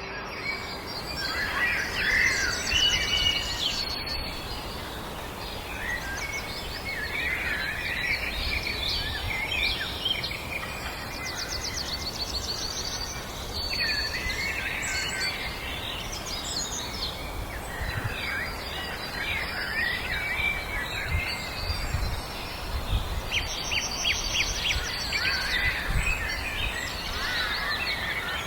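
Several songbirds singing at once: overlapping chirps, quick trills and short whistled phrases, over a steady low background noise.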